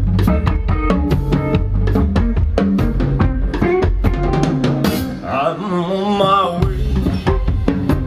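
Live band playing, with a drum kit keeping a busy beat of bass drum and snare. About five seconds in the drums drop out for a moment under a held, wavering note, then the beat comes back.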